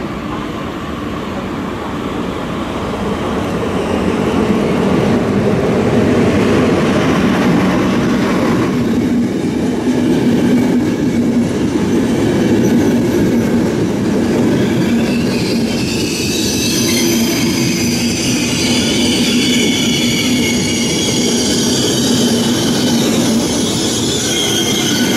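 Intercity passenger train hauled by an E444R electric locomotive running into the station: the locomotive and coaches roll past with a steady rumble, and about two-thirds of the way through a high-pitched brake squeal from the coaches' wheels sets in and holds as the train slows to stop.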